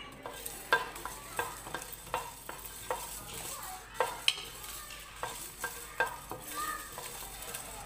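Wooden spatula stirring coriander seeds and dried red chillies dry-roasting in a nonstick pan: repeated knocks and scrapes of the spatula on the pan, about two a second, over a steady high hiss.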